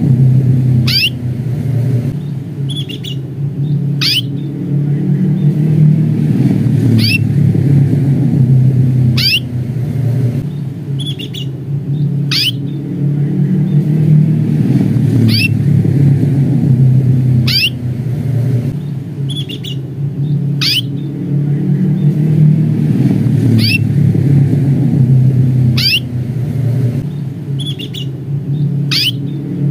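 Canary giving short, sharp, high 'cuit' call notes every one to three seconds, with softer, shorter chirps in between. A loud steady low rumble runs underneath.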